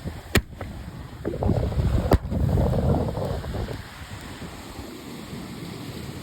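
Wind buffeting the microphone with surf behind it, broken by two sharp cracks about a second and three-quarters apart.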